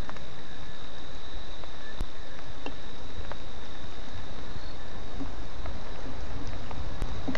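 Night insects, crickets among them, trilling without a break on one high note, over a steady rain noise with scattered drops ticking.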